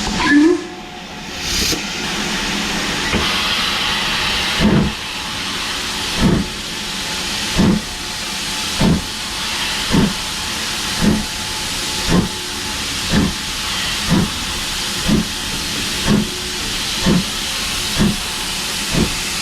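Steam locomotive pulling away: a steady hiss of steam with exhaust beats that start about a second and a half apart and quicken to under a second apart as it gathers speed. A brief loud sound comes right at the start.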